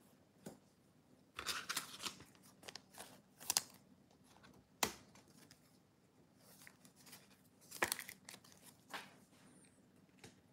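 Trading cards and their plastic packaging being handled: faint rustling and scraping in short spells, with a few sharp clicks, the clearest about five seconds in.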